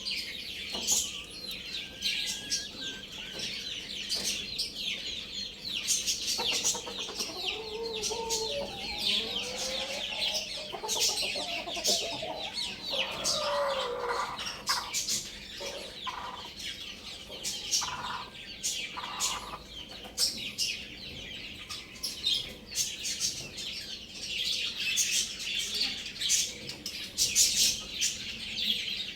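Chickens clucking, with a young rooster's wavering crow in the middle, over a constant layer of high-pitched chirping.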